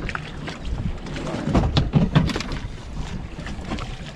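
Wind buffeting the microphone over choppy water slapping against the hulls of two boats held alongside each other, with a cluster of knocks and rattles a little under two seconds in.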